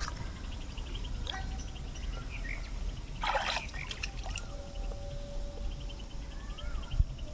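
Water splashing and trickling as a fishing net is worked at the water's edge, with a brief louder splash a little past three seconds in.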